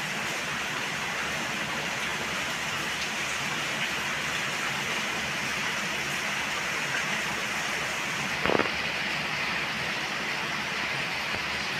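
Heavy cyclone rain falling steadily, with one short knock about eight and a half seconds in.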